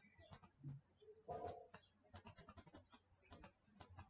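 Faint, quick clicks and taps of a stylus writing on a tablet screen, with a brief soft hum about a second and a half in.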